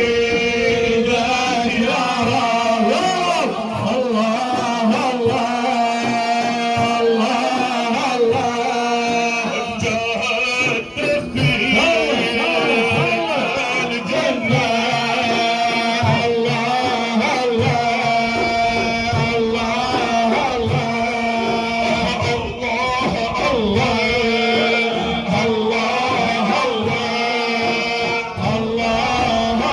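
Sufi dhikr chanting: male voices singing religious praise over a steady held note, with drum beats throughout.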